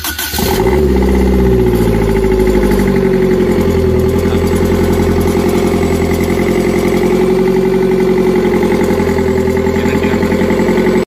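Chevrolet Enjoy's 1.3-litre four-cylinder diesel, freshly rebuilt and run with no gearbox fitted, finishes cranking on the starter and catches about half a second in. It then settles into a steady idle with an even beat.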